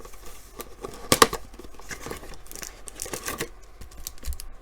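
Trading cards and their cardboard and plastic packaging being handled: scattered clicks, rustles and short tearing sounds, with one sharp click about a second in.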